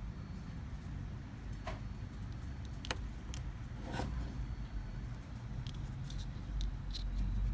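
Light clicks and taps of a small precision screwdriver set being handled, about eight scattered through, over a steady low rumble.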